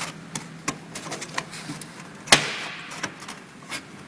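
CNC channel letter bending machine at work: a low steady hum under a run of light clicks, with one loud sharp clack about two seconds in, followed by a short hiss that fades away.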